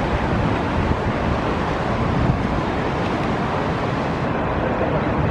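Steady rushing noise of river rapids, with wind buffeting the microphone.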